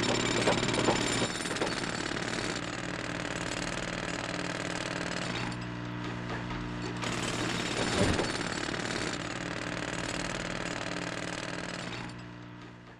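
Construction racket: a steady, rapid mechanical hammering din, like a jackhammer at work. It dips briefly mid-way, swells again, and fades out near the end.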